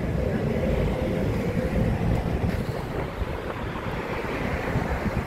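Wind buffeting a phone's microphone as it is carried along a street, a steady low rumble that eases slightly about halfway through.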